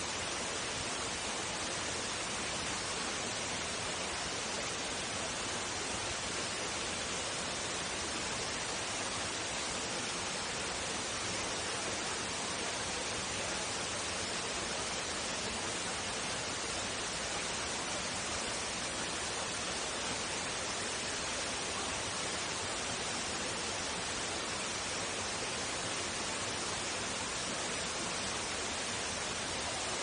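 Steady rush of falling water from Greeter Falls: an even hiss that does not change.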